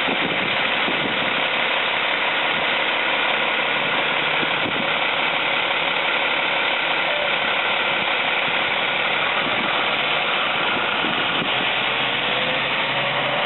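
40-foot transit bus engine running steadily as the bus maneuvers at low speed, with a faint rising whine near the end.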